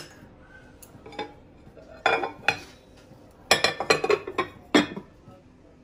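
Spoon clinking and scraping against a glass bowl while yogurt-marinated chicken pieces are stirred: a couple of knocks about two seconds in, then a quick run of clinks from about three and a half to five seconds.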